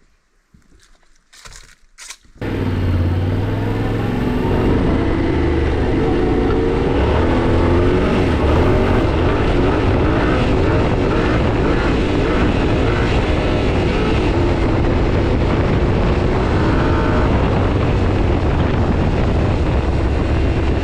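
Yamaha Tenere 700's parallel-twin engine running steadily under way over a rush of noise, starting suddenly about two and a half seconds in and cutting off abruptly at the end. Before it, only a few faint clicks.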